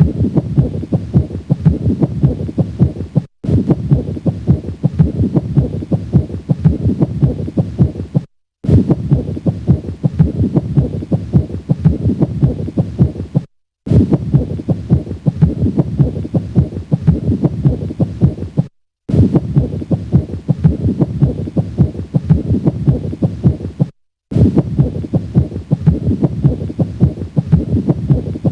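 Stethoscope recording of heart sounds at the cardiac apex with a pericardial friction rub, the sound of inflamed pericardial layers rubbing together, typical of pericarditis. A clip of about five seconds plays over and over, with a brief silence between repeats.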